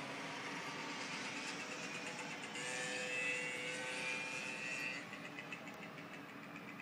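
Distant road traffic heard from high above, with one vehicle passing more loudly for a couple of seconds midway. About five seconds in the traffic eases and a fast, regular high-pitched chirping begins, about five pulses a second.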